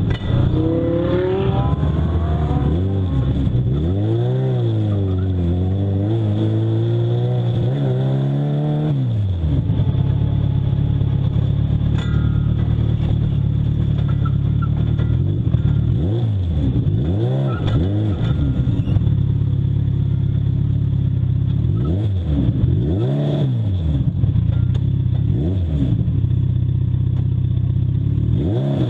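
Legends race car's Yamaha motorcycle engine heard from inside the open cockpit, rising and falling in pitch for the first nine seconds or so, then running steadily at low revs with several short blips of throttle as the car rolls to a stop.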